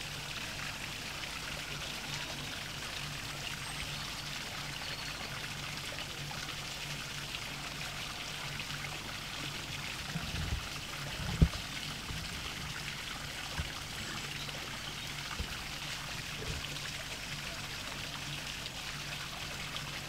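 Small mini-waterfall: a thin stream of water pouring from a gap between wooden boards into a pond, splashing steadily, with a faint steady low hum underneath. A single dull thump comes about halfway through.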